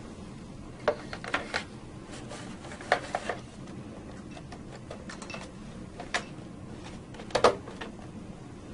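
Front cover of an Eaton Series NRX circuit breaker being handled and fitted onto the breaker: a scattering of short knocks and clicks, the loudest near the end, over a steady low hum.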